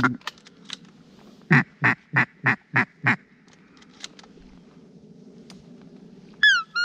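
Duck quacking: a quick run of six quacks at about three a second, then two short rising squeals near the end.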